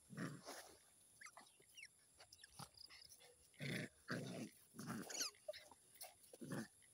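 A puppy and an otter play-fighting: five short dog vocal bursts, one near the start and four in the second half, with high, thin squeaks and chirps between them.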